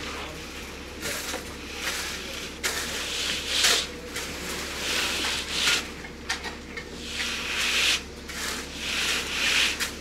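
Hand tools scraping and pushing wet concrete in a string of irregular, rough strokes, about one every second or so.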